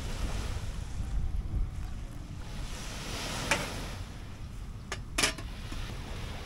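Sea waves washing onto a beach, with wind buffeting the microphone in a steady low rumble. A few short, sharp clicks come around the middle.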